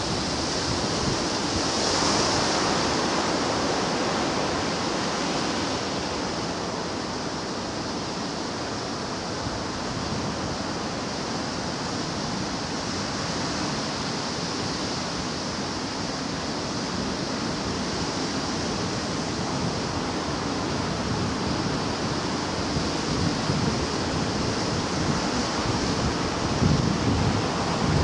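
Sea surf washing in, a steady rush of waves with a swell about two seconds in. Gusts of wind rumble on the microphone near the end.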